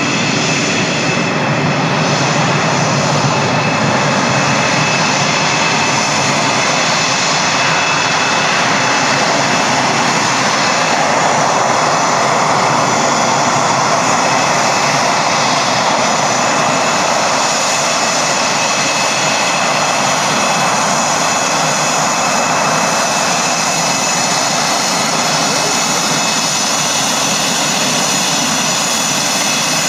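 F/A-18 Hornet's twin General Electric F404 turbofans running at taxi power: a steady jet rush with a constant high whine. The sound swells a little about halfway through as the jet turns nose-on toward the listener.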